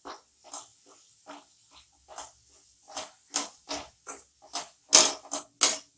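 A spatula scraping and knocking against a non-stick kadhai in quick stirring strokes through a thick tomato-onion masala, about two to three strokes a second. The strokes grow louder near the end.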